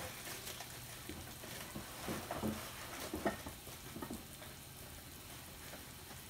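Broccoli florets sizzling quietly in oil in a small frying pan over a low gas flame. A few faint knocks come about two to four seconds in.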